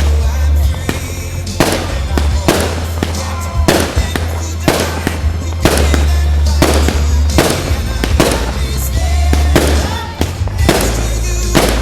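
Firework shells bursting one after another, about a dozen sharp bangs roughly a second apart, over music with a heavy bass.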